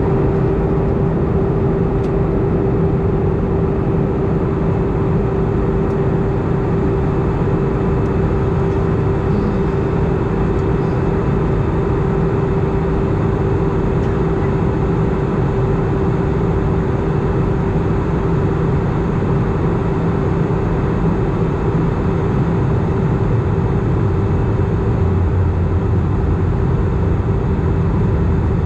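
Airbus A319 cabin noise in flight: a steady drone of the jet engines and rushing air around the fuselage, with a constant humming tone over a low rumble.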